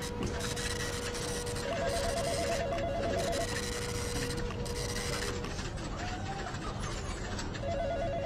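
Office ambience: an electronic telephone ringing with a fast warbling trill, about two seconds in and again near the end, over the steady clatter of a printer running.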